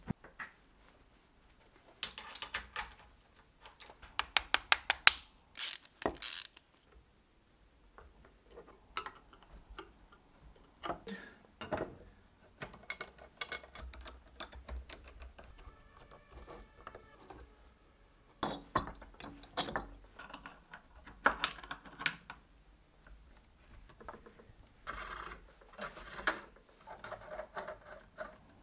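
Hand assembly of small metal parts: scattered clicks and clinks of screws, washers and a nut driver on aluminium rails, with a quick run of rapid clicks about five seconds in.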